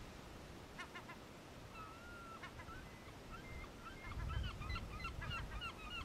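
Gulls calling: a few short yelping notes about a second in, then a run of overlapping calls that rise and fall. A low rumble of wind on the microphone comes in about four seconds in.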